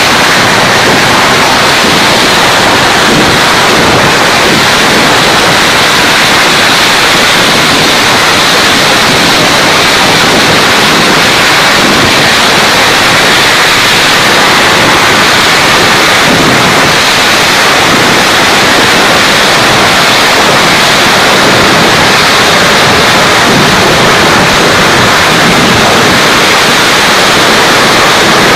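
A Kerala temple-festival fireworks barrage (vedikettu): crackers and shells bursting so fast that they merge into one steady wall of noise. It is loud enough to hold the recording at its limit throughout.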